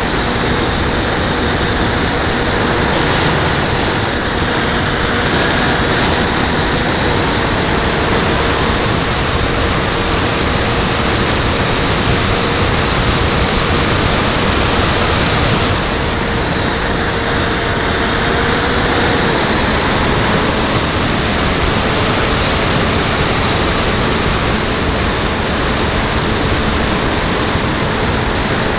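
Onboard a radio-controlled model plane in flight: a loud, steady rush of air over the camera with the motor's high whine on top. The whine dips in pitch and comes back up twice, a few seconds in and again past the middle.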